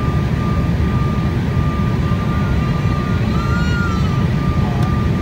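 Airliner cabin noise on final approach: a steady low rumble with a thin steady whine running above it.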